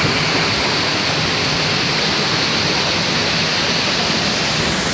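Waterfall: falling water rushing in a loud, steady, even roar of noise.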